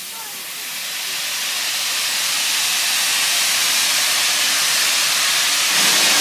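Steam locomotive venting steam: a loud, steady hiss that swells over the first few seconds and then holds.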